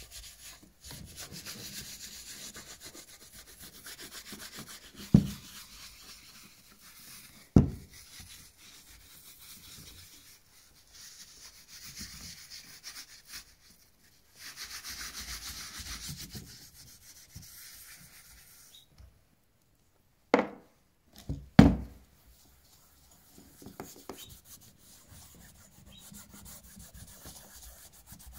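Applicator pad rubbing cream into the leather upper of a shoe, a soft continuous scrubbing hiss. A few sharp knocks break in, about 5 and 7.5 seconds in and three close together about three-quarters of the way through.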